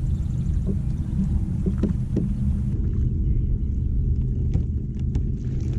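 Steady low rumble of water and wind noise around a kayak, picked up by a camera mounted on the boat, with a few light knocks and clicks.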